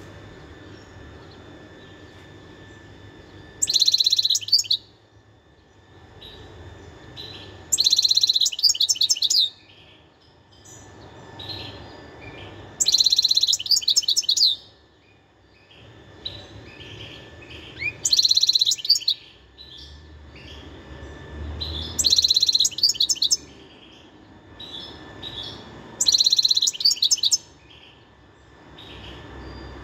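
European goldfinch singing: six loud bursts of fast, high twittering song, each a second or two long and coming about every four seconds, with quieter twitters in between.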